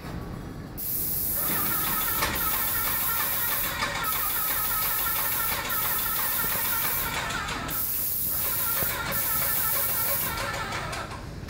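Graco airless paint sprayer's gun spraying: a loud steady hiss that starts about a second in, breaks off briefly several times, and stops shortly before the end.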